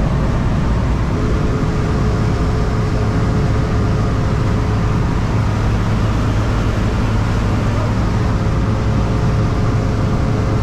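Steady drone of a jump plane's engine and propeller heard inside the cabin, a loud low hum with a faint steady higher tone over it.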